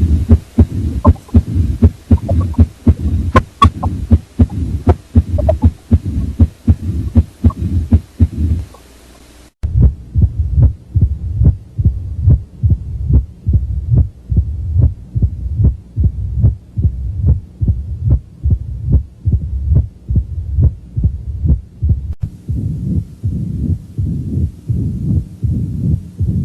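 Heart sounds of mitral stenosis: a regular heartbeat, slightly faster than one beat a second, with a low rumbling murmur filling the gaps between beats. About nine seconds in there is a brief break where one recording gives way to another, and the sound changes again about 22 seconds in.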